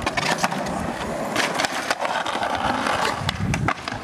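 Skateboard wheels rolling on concrete, with a series of sharp clacks and knocks from the board.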